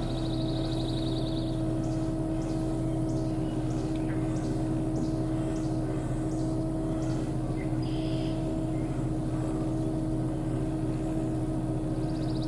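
Truck engine idling: a steady hum with several held tones. A brief high, fast-pulsing trill sounds near the start.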